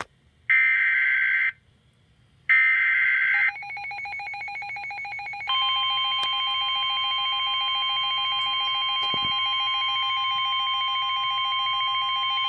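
Emergency Alert System weather-radio alert: two one-second bursts of the screechy SAME digital header, a second apart, then a rapidly pulsing beep tone. About five and a half seconds in, the steady 1050 Hz Warning Alarm Tone starts and holds alongside the pulsing beep.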